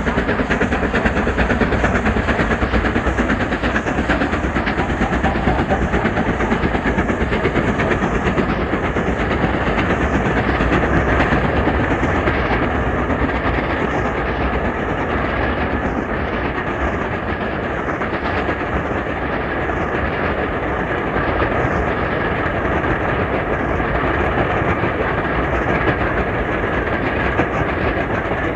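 Steam railway train running steadily along the track, with a continuous rolling noise of wheels on rail and a clickety-clack from the rail joints.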